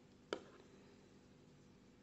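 Near silence: room tone with a faint steady hum, broken by one short click a third of a second in.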